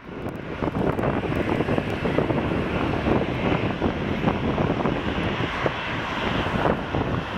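Jet engine noise from a Boeing 737's CFM56 turbofans heard at a distance as the airliner rolls along the runway, mixed with wind buffeting the microphone. The sound fades in at the start.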